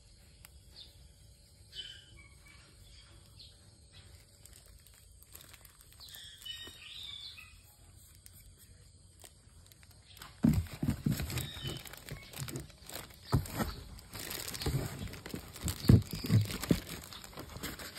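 Hands handling newspaper and white packing stuffing in a cardboard box, an irregular rustling and crinkling with soft knocks that starts about ten seconds in. Faint bird chirps come twice before it.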